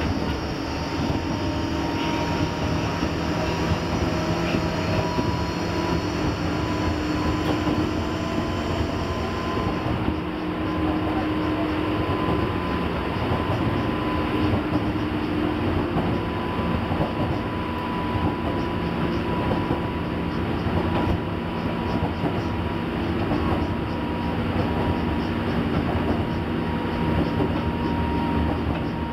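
JR 201 series armature-chopper electric train heard from inside the carriage while running between stations: steady motor and running-gear whine over wheel-on-rail noise. A high hiss above the running noise drops away about a third of the way in.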